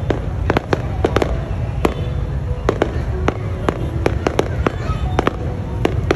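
Fireworks display: sharp bangs and cracks going off irregularly, several a second, over a continuous low rumble.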